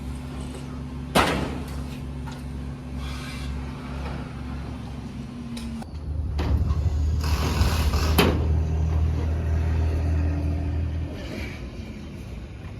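An engine running steadily with a low hum, growing louder from about six seconds in and easing off again near the end. A sharp knock comes about a second in and another around eight seconds.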